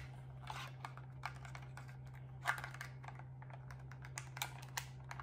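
Small scissors snipping and crinkling a clear plastic toy package as it is cut open: irregular light clicks and rustles, one louder about halfway through, over a steady low hum.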